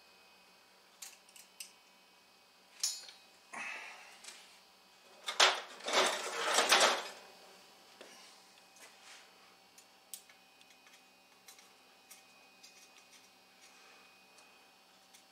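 Metal elements of a discone antenna clinking and rattling as they are handled and screwed into the hub: scattered light ticks and knocks, with a louder jumble of metal clatter about five to seven seconds in.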